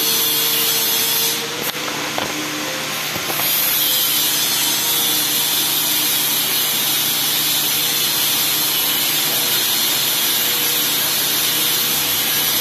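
A machine runs steadily with a hiss and a low hum, and dips for about two seconds about a second and a half in.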